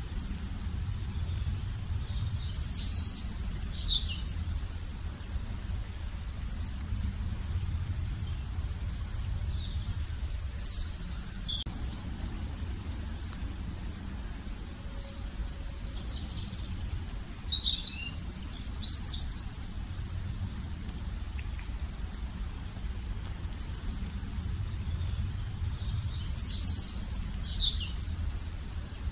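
A songbird singing short, high chirping phrases, four times at intervals of about seven to eight seconds. A steady low rumble runs underneath.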